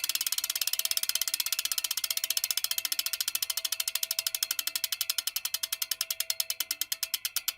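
Bicycle wheel spinning freely, its freewheel pawls ticking in a fast, even ratchet that steadily slows as the wheel coasts down.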